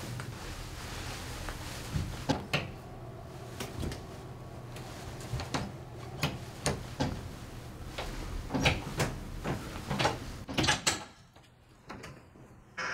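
Clicks and knocks of a door's lever handle and latch being worked, a string of sharp knocks over a steady low hum that drops away about eleven seconds in.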